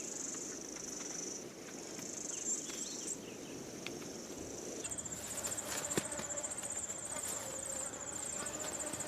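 Insects, crickets or similar, trilling in a steady high buzz that breaks off about three seconds in. Shortly after, a high, rhythmically pulsing insect chorus starts up and keeps going.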